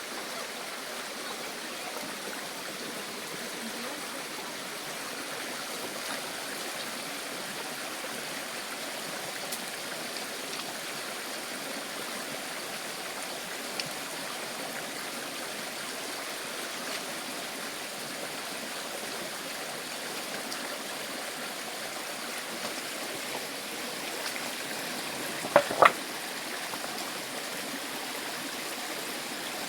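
Stream water running over rocks in a steady rush. Near the end, two sharp knocks come close together.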